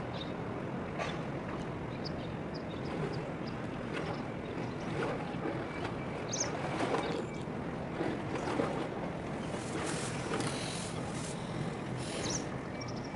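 Steady low rumble of a container ship and its escort tug under way across harbour water, with scattered clicks and a few short high chirps.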